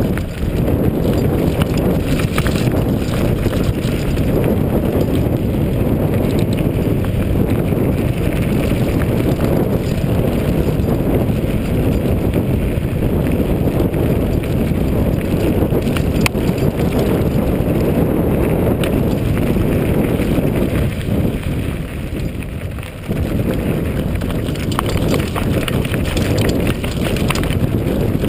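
Mountain bike rattling and rumbling continuously as it rides fast down a rough gravel and rock dirt track, with tyres crunching over stones and frame and handlebar parts clattering; it eases briefly about three-quarters of the way through.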